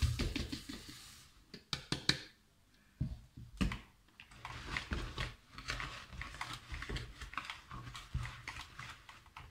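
Dry oats and flour poured from a plastic measuring jug into a mixing bowl with a brief rustle, then stirred into the creamed margarine with the hand mixer's beaters, an irregular clatter and scraping against the bowl.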